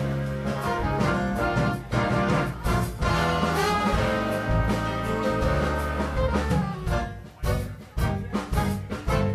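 Big band playing jazz live, trombones, trumpets and saxophones together as a section. Short punched accents with brief gaps come near the end.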